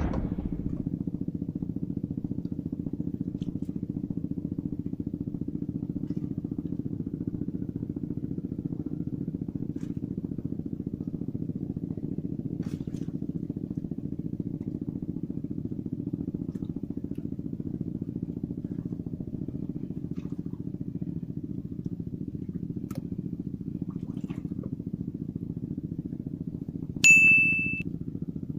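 Steady low drone of a distant motor, with a short high tone about a second long near the end.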